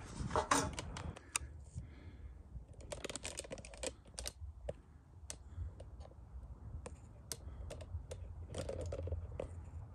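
Irregular light clicks and taps, clustered near the start, around three to four seconds in and near the end, over a low steady rumble: small handling knocks of wood and tools.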